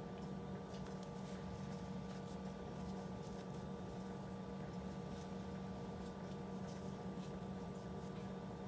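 Steady low hum with a few faint scattered ticks.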